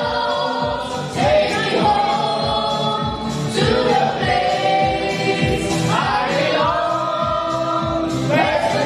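Several voices singing together in long held notes over backing music with a steady beat.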